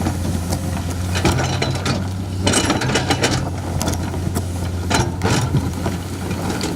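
Excavator diesel engine running steadily under a low hum, with irregular metallic clanks and rattles from the working machine, heaviest about halfway through.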